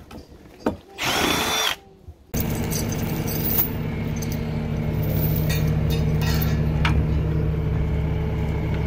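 A cordless drill whirs briefly about a second in. Then a Bobcat skid-steer loader's engine runs steadily at idle, with a few light metallic clinks of a chain being handled a few seconds later.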